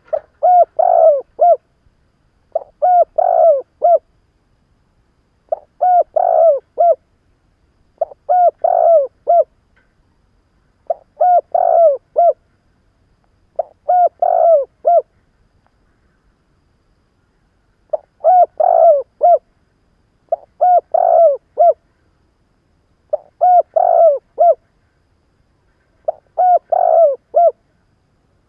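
Spotted dove (cu gáy) cooing, a seasoned decoy bird's call used to lure wild doves: ten repeated phrases, each a short note followed by a quick run of three or four coos, about every two and a half seconds, with a longer pause about halfway through.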